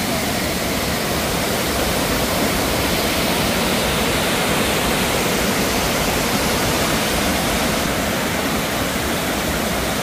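Waterfall and rapids in full flow, water rushing over rocks close by in a steady, loud, unbroken rush.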